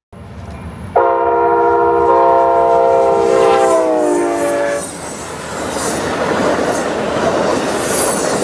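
Amtrak passenger train passing: the locomotive's multi-chime air horn blows one long blast of about four seconds that drops in pitch as it goes by, then the loud rumble and clatter of the passenger cars rolling past, with a faint high wheel squeal near the end.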